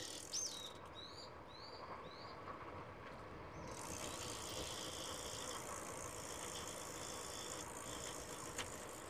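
Riding noise from a bicycle coasting downhill: a steady hiss of wind and tyres that swells about four seconds in, over a low rumble. A bird chirps a few quick notes at the start, and a single click sounds near the end.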